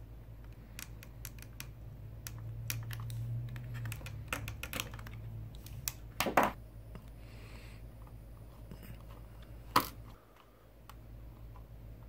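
Scattered light clicks and taps of plastic parts and a small screwdriver as an Xbox One power brick's casing and fan assembly are taken apart by hand, with one sharper click about ten seconds in.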